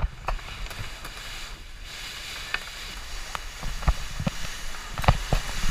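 Wind and water noise aboard a J/125 racing sailboat under way, with scattered knocks and clicks of rigging and deck gear as the crew work at the mast and foredeck.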